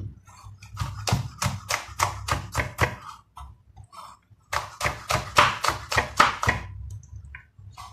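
Chef's knife slicing long green chilies on a wooden cutting board: quick, even knocks of the blade on the board, about four a second, in two runs with a pause of about a second and a half between them.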